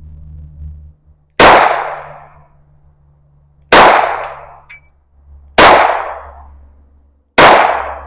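Four shots from a .22-calibre pistol, spaced about two seconds apart, each a sharp crack with a short ringing tail.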